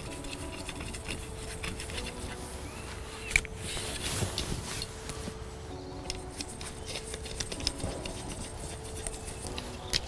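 Storm pole being fitted to a carp bivvy's frame: scattered light clicks and taps as the threaded pole end is screwed into the moulded block and the pole is handled.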